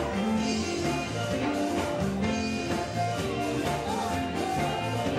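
Live gospel band music, electric guitar over a steady bass line, playing on continuously at an even level; a sliding pitched line a few times may be a voice or a guitar bend.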